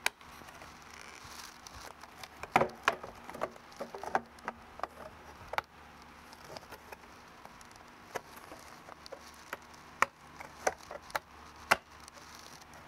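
ABS plastic robot chassis plates clicking and knocking as they are worked together and snapped into place notch by notch. Irregular sharp clicks, with a few louder knocks about two and a half seconds in and again near the end.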